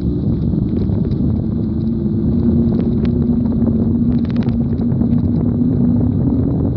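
Steady low rumble of travel along a road, with wind on the microphone and a constant hum running under it.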